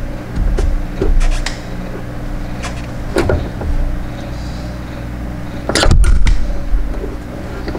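Wiring harness being pushed and worked through a rubber grommet under a car: scattered clicks, rubbing and light knocks, with a louder scrape and knock about six seconds in, over a steady low hum.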